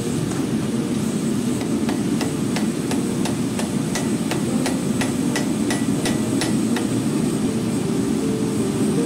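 Hand hammer striking red-hot steel on an anvil: a steady run of blows, about three a second, from about two seconds in until about six and a half seconds in, over a steady low rumble.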